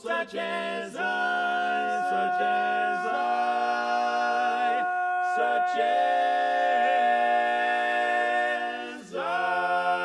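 Male barbershop quartet singing a cappella, holding long four-part chords in close harmony while one voice sustains a high note over the shifting chord. Just before the end the chord breaks off briefly and a new one is struck and held.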